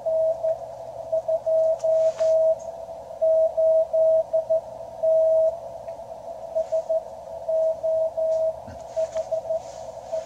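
Morse code (CW) signal heard through a QRP Labs QCX transceiver receiving on the 40 m band: a single tone of about 700 Hz keyed into short and long marks over a narrow band of receiver hiss. It is another station sending its exchange while the radio decodes it.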